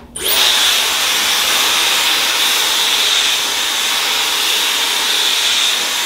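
Dyson Supersonic hair dryer switched on a moment in and running steadily: a loud rush of air with a high-pitched whine held at one pitch.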